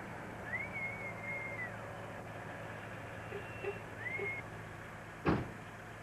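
A high whistled note that slides up, holds for about a second and drops away, then a second, shorter whistled note, over a steady low hum. A single sharp knock about five seconds in is the loudest sound.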